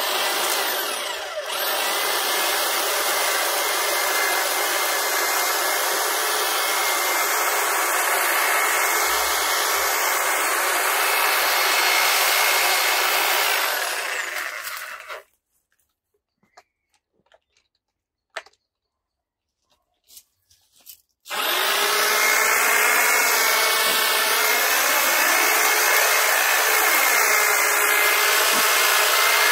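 Titan long-reach hedge trimmer running steadily as its blades cut the top of a hedge. About fifteen seconds in it stops for some six seconds, then starts again and runs on.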